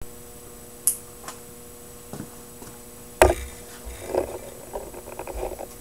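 A few light clicks and one sharp knock on a hard surface, then irregular creaking and rasping handling noises, over a faint steady hum.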